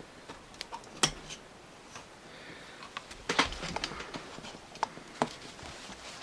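Handling noise from the Teddy Ruxpin toy's plastic head and cloth body being picked up and moved: scattered sharp clicks and knocks, the loudest about a second in and a cluster around three and a half seconds in, over a light rustle.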